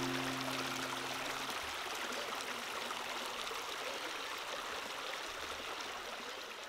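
Shallow creek water running over rocks, a steady babbling stream. A held music chord fades out in the first second and a half, and the water eases down slightly toward the end.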